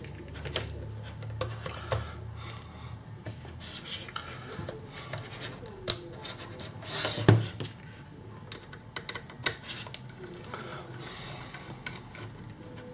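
Small hard clicks and taps of tools and plastic parts as a Bluetooth speaker is taken apart on a workbench, with one louder knock about seven seconds in, over a steady low hum.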